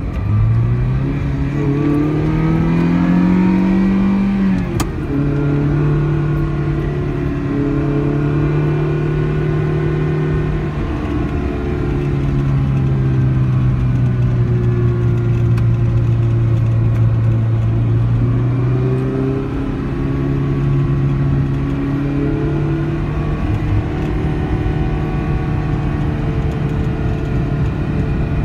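Ferrari 328 GTS's 3.2-litre V8, heard from inside the cabin while driving: the engine note rises steadily as it accelerates for about five seconds, then settles at steadier revs that drop about eleven seconds in and pick up again later.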